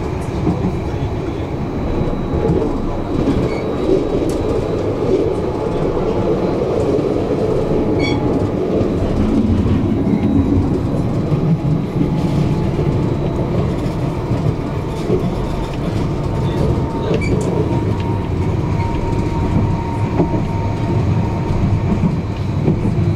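Tram running along its track, heard from aboard: a steady rumble of wheels on rails with a few sharp clicks over the rail joints, and a thin whine that comes in about two-thirds of the way through.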